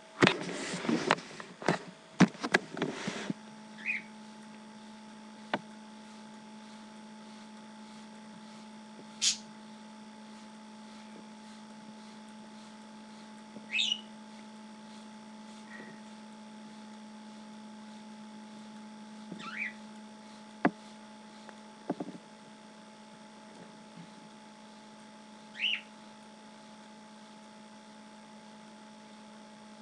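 A quick run of hissing squirts from a hand spray bottle misting water over a bathing cockatiel, lasting about three seconds. After that the cockatiel gives about five short, separate chirps over a steady low hum, with a few sharp clicks.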